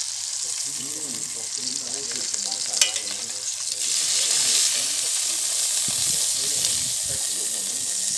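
Beef steaks frying in hot oil with garlic in a stainless steel pan, a steady sizzling hiss that grows louder about four seconds in. One sharp click about three seconds in.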